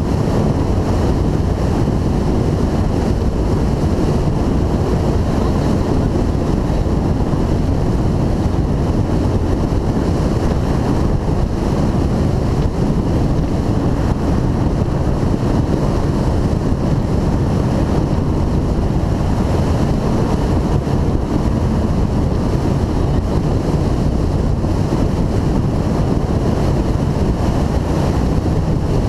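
2002 Formula 292 Fastech powerboat running at speed: a steady engine drone under heavy wind rush on the microphone and water rushing past the hull.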